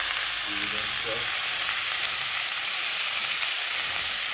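Seasoned crawfish frying in hot oil, a steady, even sizzle.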